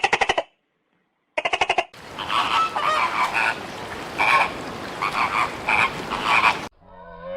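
Animal calls: two short, fast rattling calls about a second and a half apart, then several seconds of repeated short calls over a noisy background that cuts off near the end.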